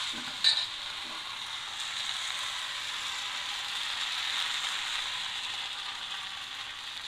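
Appam batter sizzling steadily in a hot appam pan as the pan is swirled to spread it, with one short sharp knock about half a second in.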